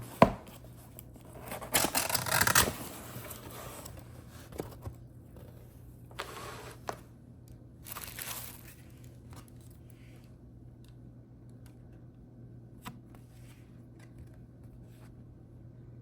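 Packaging being torn open by hand. A sharp knock comes first, then a loud tear about two seconds in, followed by two shorter tears or rustles and a few light clicks.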